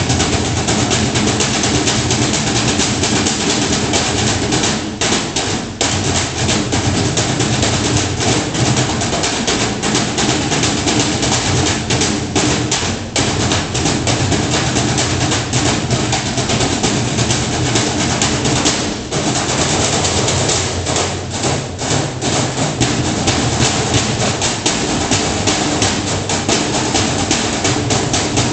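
A percussion ensemble drumming with sticks on metal trash cans: a fast, dense rhythm of strokes that keeps going, briefly dropping back a few times.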